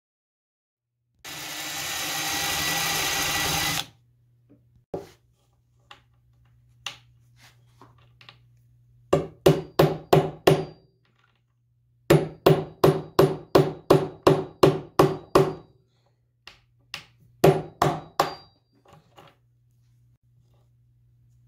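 A power tool runs for about three seconds, then come three quick runs of sharp, ringing taps, about four a second, as an old screw is worked out of a wooden washstand top.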